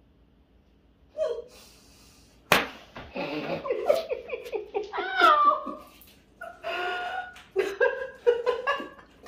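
A flour tortilla slapped across a person's face: one sharp smack about two and a half seconds in, followed by several seconds of laughter and squeals.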